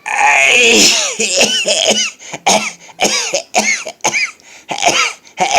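A man's powerful sneezing fit, brought on by a trick with his nose. It opens with one long, loud sneeze, then a rapid run of short, sharp sneezes at about two a second.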